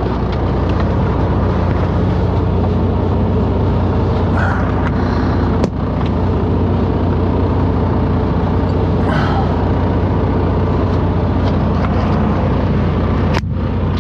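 Semi truck's diesel engine running steadily at low speed, heard from inside the cab.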